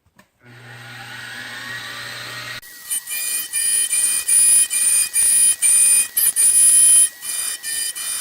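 Grizzly G0704 milling machine: the spindle runs up with a rising whine, then the cutter bites into cast aluminum, screeching in loud, stuttering high-pitched pulses. This is chatter, which the machinist puts down to too much tool extension and a cutter held in a drill chuck instead of an end mill holder.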